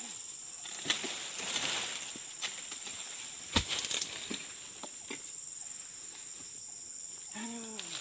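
Dodos chisel on a pole jabbing at the base of an oil palm frond: a few sharp knocks, then a loud thump with a rustle of leaves about three and a half seconds in as the cut frond comes down. A steady high hum of insects runs underneath.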